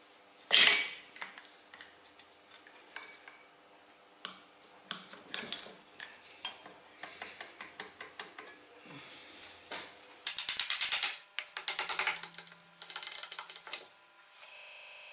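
Metal clinks and knocks as the handwheel and belt pulley of a Singer 29K33 cobbler's sewing machine are worked loose on their shaft and tapped with a hammer. A sharp click comes near the start, then scattered clicks, a fast, loud rattle of metal taps about two-thirds in, and a few more taps after it.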